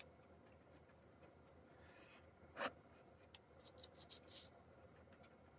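Faint scratching of a paintbrush spreading a thick brown acrylic paint and white glue mix over a diorama base, with one brief, louder swish about two and a half seconds in and a few light scratches after it.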